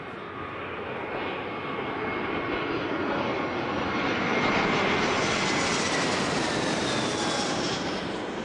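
Jet airplane flyby sound effect: a rushing engine noise that swells to its loudest about halfway through, with a high whine that slowly falls in pitch, then begins to fade near the end.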